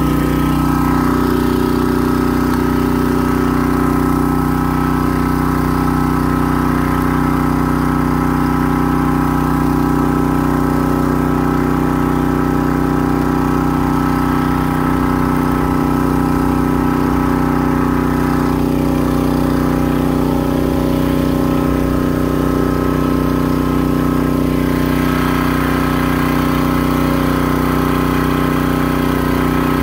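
Gas-engine pressure washer running steadily at one constant speed, not spraying.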